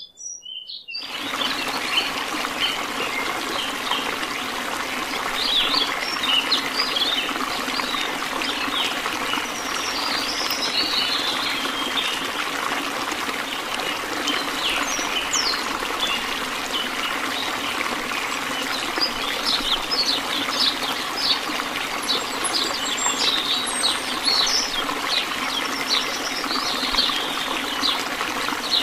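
A thin stream of water from a miniature pump's pipe pours into a small pond, a steady splashing trickle that starts about a second in. Birds chirp over it.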